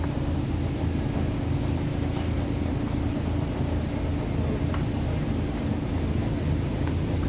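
Canal boat's engine idling, a steady low rumble.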